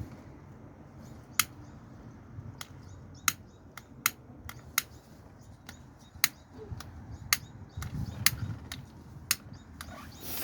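A series of sharp clicks at irregular intervals, roughly one or two a second, some louder than others, over a faint low hum.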